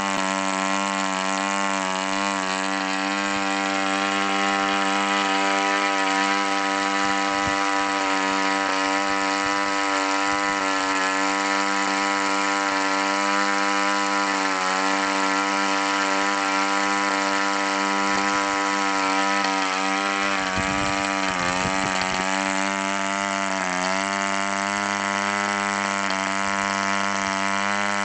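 Boll Aero 1.8 model diesel engine running steadily at about 6,000 rpm, driving a 9.5 x 6 propeller. Its pitch sags and recovers briefly about twenty seconds in, and again a few seconds later.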